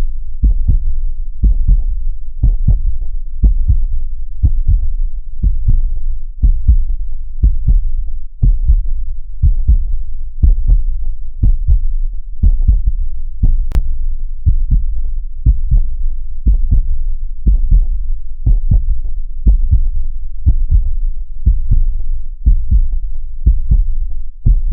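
A heartbeat sound, played as womb-like comfort for a baby: a steady, even rhythm of deep, muffled double thumps.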